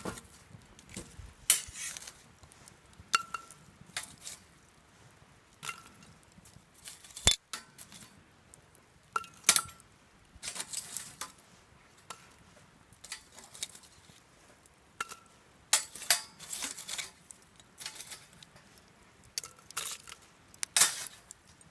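Irregular metal clinks and scrapes of cooking utensils, several with a short ringing tone.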